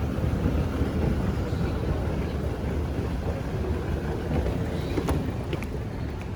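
Steady low rumble of airport terminal background noise, with a few light clicks near the end.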